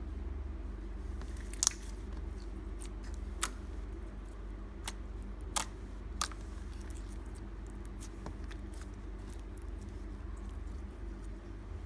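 Clear glitter slime being squeezed and played with by hand, giving scattered sharp pops and clicks, a few seconds apart.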